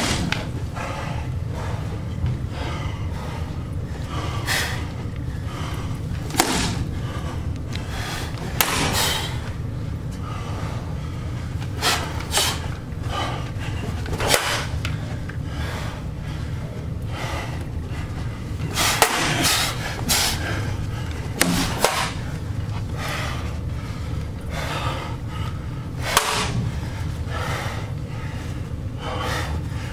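Machete blows striking a dented metal round shield: about fifteen sharp clangs and knocks at irregular intervals, some in quick pairs, over a steady low hum.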